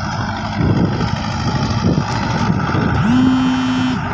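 Mahindra 575 International tractor's engine running steadily under load as it pulls a seven-foot rotavator through the soil, the tractor untroubled by the load. About three seconds in, a steady higher tone joins for about a second.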